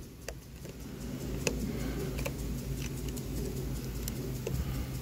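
A few faint metal clicks from a small hand driver tightening the brass bolts that hold a throttle position sensor to an accelerator pedal, over a steady low hum.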